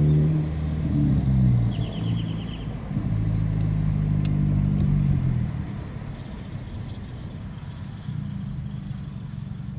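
Nissan Sentra B17's four-cylinder engine through an aftermarket HKS-muffler straight-pipe exhaust, heard from inside the cabin while driving. It pulls loudly at the start and eases off about half a second in. It pulls again steadily from about three seconds in, then drops to a low drone for the rest.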